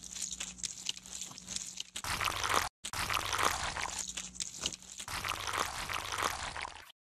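Shallow muddy water sloshing and trickling with small wet splashes, in short pieces broken by two brief silences.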